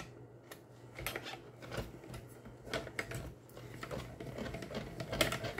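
Manual die-cutting machine rolling a sandwich of cutting plates and metal leaf dies through its rollers, cutting the dies into card stock, with irregular clicks and creaks.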